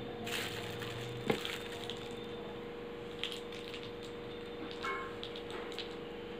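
Steady background hum carrying one constant tone, with a few faint light taps or clicks scattered through it.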